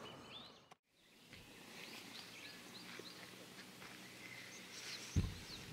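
Faint outdoor ambience with birds chirping now and then. The sound drops out briefly about a second in, and there is a low thump near the end.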